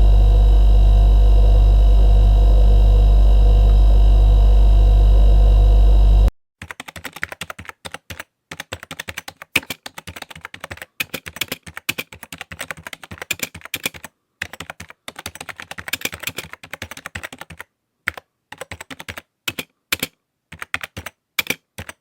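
A loud steady low hum that cuts off suddenly about six seconds in, followed by typing on a computer keyboard: quick runs of key clicks with short pauses between them.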